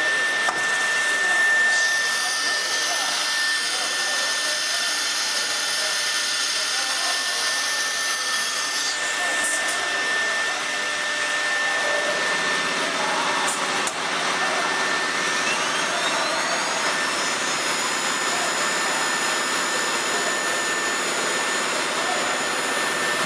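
CNC router's automatic tool changer at work: over a steady high whine, a high hiss runs from about two to nine seconds in, and a few sharp clicks follow. Then the spindle spins up, its whine rising in pitch for about two seconds and levelling off at a steady high pitch.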